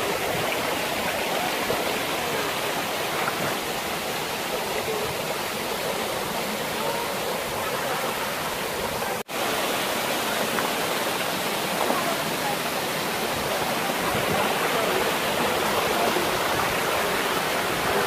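Rushing water of a waterfall and its rocky stream: a steady, even rush of falling water, broken once by a momentary gap about nine seconds in.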